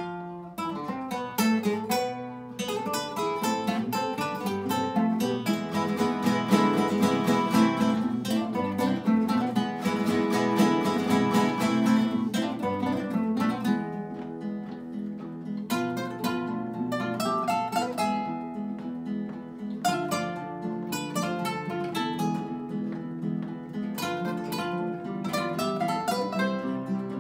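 An ensemble of classical guitars playing together, plucking melody lines over chords and breaking into rapid strummed chords.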